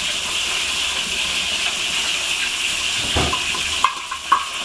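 Steady rushing hiss of a large pot of chicken soup simmering on the stove, with a low thump about three seconds in and two light clinks near the end.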